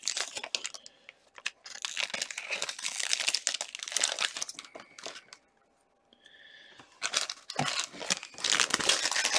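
Foil wrapper of a hockey trading-card pack being torn open and crinkled by hand, in two stretches with a short pause about five seconds in.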